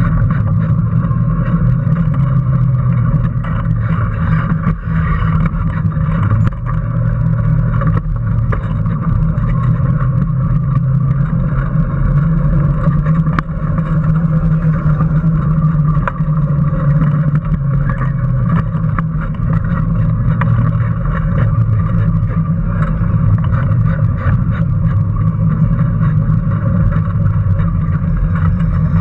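Onboard sound of a small homemade electric race car driving at speed: a steady drone from its electric drive motor and drivetrain, with a constant rattle from the light frame running over the asphalt.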